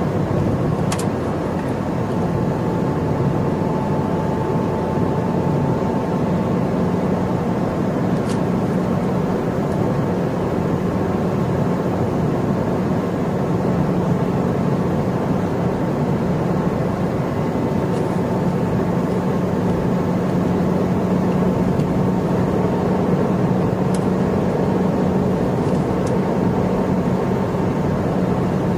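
Cabin sound of a 2012 Ford Fiesta driving at a steady speed: an even engine hum under tyre and road noise, with a few faint ticks.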